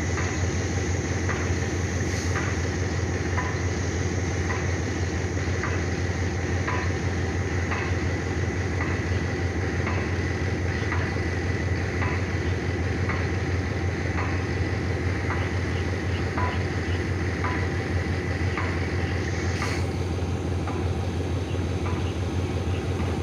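Diesel train engine running steadily close by: a low drone with a faint steady whine above it and a light tick about once a second.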